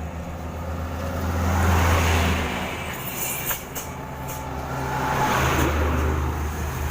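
Road traffic passing close by: two heavy vehicles' engine rumble and road noise swell and fade, loudest about two seconds in and again around five and a half seconds. A few short ticks come between the two.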